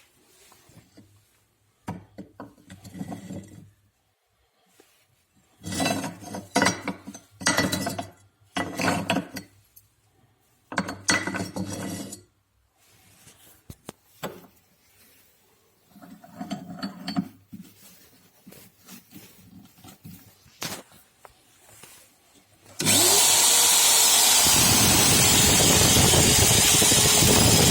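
Irregular bouts of rubbing and scraping from hand work on metal parts. Near the end, the electric drill motor of a homemade drill press built from a steering rack switches on suddenly and runs steadily, its pitch rising briefly as it spins up.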